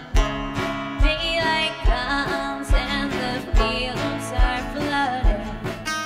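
Live folk song: acoustic guitar and banjo picking over a steady low thump on the beat, with a woman singing the melody from about a second in.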